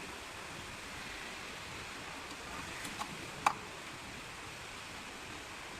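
Steady hiss of background noise, with one sharp click about three and a half seconds in.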